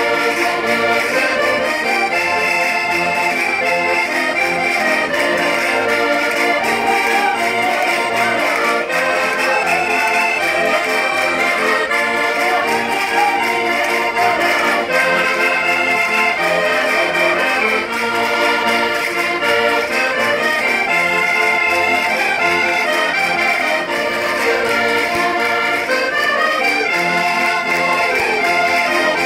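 Several Minho diatonic button accordions (concertinas) playing a vira together, the chords held over an evenly repeating bass beat.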